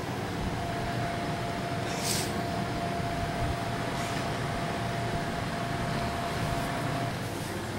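Steady hum and hiss of a room air-conditioning unit, with a thin steady whine that stops about a second before the end and a brief soft hiss about two seconds in.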